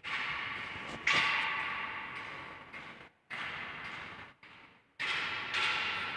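A series of about five sudden knocks, each ringing on and fading away over a second or two.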